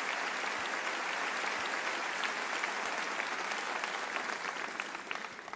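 Audience applauding after a live concert performance: dense, steady clapping that thins out and fades over the last second or so.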